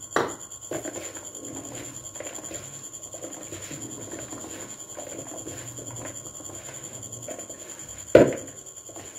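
Hands tossing and squeezing shredded potato, spinach and onion with gram flour in a plastic bowl: a soft, steady rustling and squishing of the vegetables. A short louder knock comes just after the start and another about eight seconds in.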